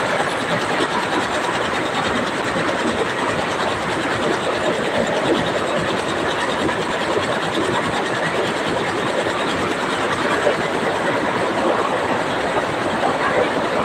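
Power loom running at speed: a loud, steady, fast mechanical clatter that does not let up.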